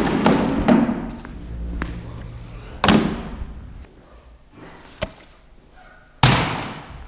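Loud knocks on a wooden skate ramp echoing through a large hall: one at the start, one about three seconds in and one near the end, each with a long echoing tail, and a light click in between.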